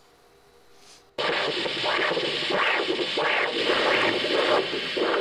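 A loud hiss from the clip's soundtrack cuts in suddenly about a second in, with rhythmic whooshing swells about three every two seconds. The rhythm fits a pulsatile perfusion pump driving fluid through a surgical training cadaver.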